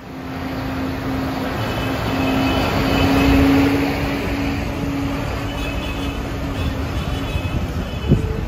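Vehicles passing on a wet road: a car drives close by with tyre noise on the wet tarmac and a steady engine hum, loudest about three seconds in, with tractors running behind it. A single sharp knock near the end.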